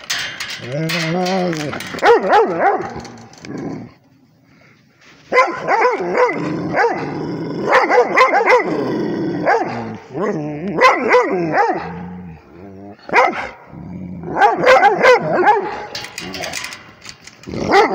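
Rhodesian ridgebacks barking close up, loud pitched barks that bend up and down in pitch and come in quick runs, with a short pause about four seconds in.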